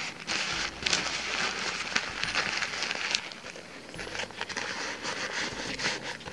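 Thin fabric rain cover rustling and crinkling with many small crackles as it is crumpled and stuffed by hand into a camera bag's pocket.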